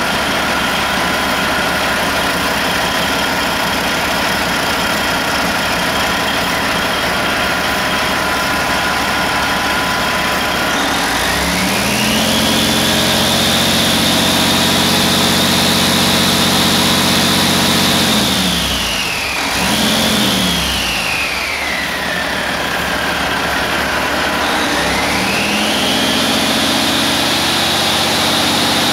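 Detroit Diesel Series 60 inline-six diesel engine idling, then revved up about eleven seconds in and held at a higher speed for several seconds. It drops back with a quick blip of the throttle, idles again, and is revved up and held once more near the end.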